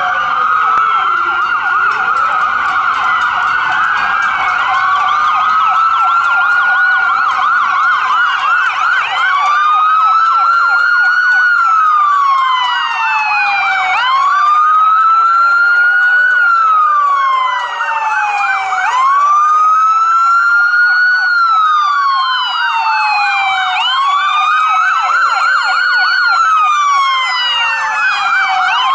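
Several police and ambulance sirens sounding at once. A slow wail rises and falls about every five seconds over faster, overlapping yelping sirens.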